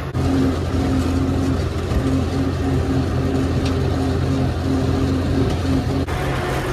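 UTB tractor's diesel engine running steadily under load while the rear-mounted mower cuts alfalfa, heard from inside the cab.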